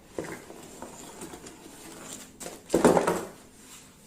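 Laptop-box packaging being opened and handled: scattered rustles and taps, then a louder rustling burst about three seconds in.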